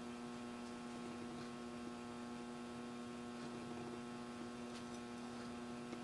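Steady electrical mains hum with a stack of even overtones, with a few faint ticks.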